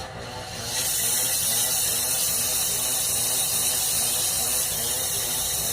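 Gas brazing torch flame hissing steadily while a refrigerator's copper pipe is brazed. The hiss jumps up sharply about a second in and then holds steady, over a low hum.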